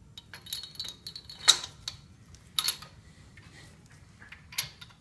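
Light metal clicks and clinks as a main bearing cap is handled and seated on the crankshaft in a bare 5.7L HEMI engine block. A few separate clinks, the sharpest about one and a half seconds in.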